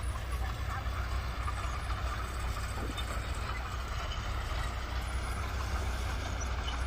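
Heavy earthmoving machinery's diesel engine running steadily under load: a deep continuous rumble with a rough, even noise over it.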